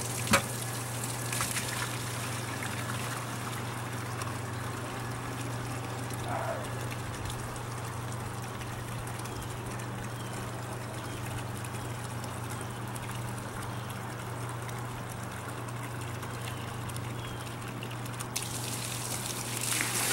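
Rainwater pumped from a boat pours from a hose into a plastic 5-gallon bucket, a steady splashing stream over a low steady hum. There is a sharp knock just after the start as the bucket is set down, and the sound grows louder near the end as the full bucket is tipped out.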